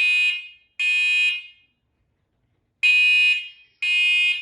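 Talking combination smoke and carbon monoxide alarm sounding its smoke test: loud half-second beeps in the temporal-three pattern, three beeps then a pause of over a second, the standard fire-evacuation signal.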